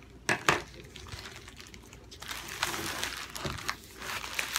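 Taped shipping wrapping crinkling and tearing as it is pulled off a hard cardboard tube, with two sharp knocks about half a second in and the crinkling growing denser from about two seconds in.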